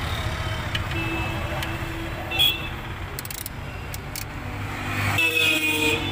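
Steady low rumble of traffic, with a few sharp metal clicks as a socket is turned to tighten the oil drain plug, and a brief horn-like tone near the end.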